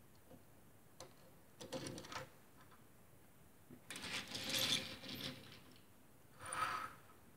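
Small die-cast Majorette Jeep Cherokee toy car handled and rolled on a wooden table: its little wheels and metal body rattle and click in three short runs, the longest and loudest in the middle, after a single click about a second in.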